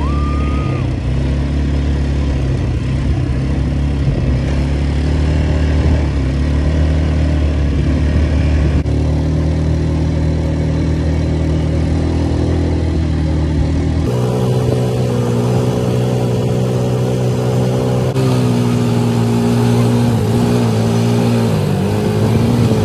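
Quad bike engines running at a steady throttle. The engine note changes abruptly about fourteen seconds in, then wavers up and down near the end as the throttle changes.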